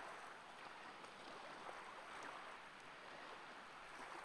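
Faint, steady outdoor hiss with no distinct sound standing out: quiet ambience, close to near silence.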